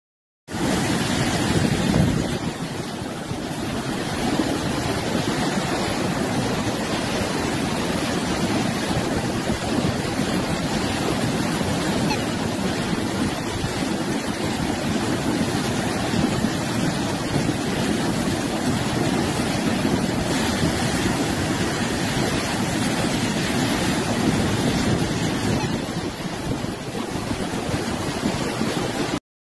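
Muddy flash-flood water rushing down a street in a fast torrent, a steady loud rush of water.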